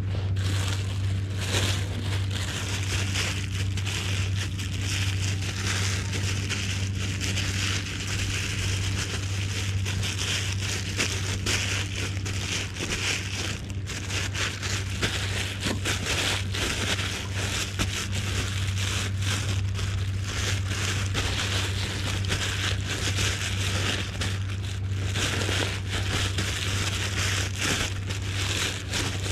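Thin plastic bag being handled and scrunched, crinkling and crackling irregularly, over a steady low hum.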